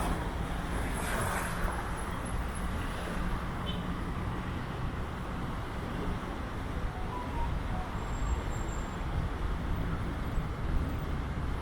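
Steady outdoor rumble of distant road traffic, with a low engine hum that fades out in the first few seconds.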